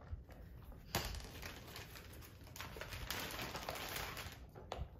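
Clear plastic bag crinkling as it is handled and opened, starting sharply about a second in and strongest a little before the end.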